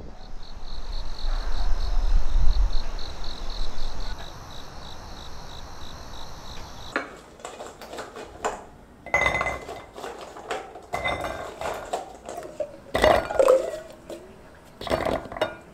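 A low rumble with a faint high buzz pulsing several times a second, then, about seven seconds in, kitchen clatter: raw chestnuts knocking and clinking against a stainless steel bowl and a glass pot, in a string of sharp separate knocks.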